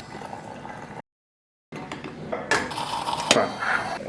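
Kitchen utensils clinking and knocking against a bowl and dishes, with sharp clinks about two and a half and three and a third seconds in; the sound cuts out completely for under a second about a second in.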